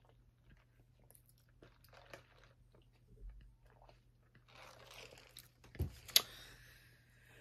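Quiet mouth sounds of sipping a drink through a straw from a plastic cup and swallowing: scattered small clicks, a brief hissing sip past the middle, then two sharper clicks a little later.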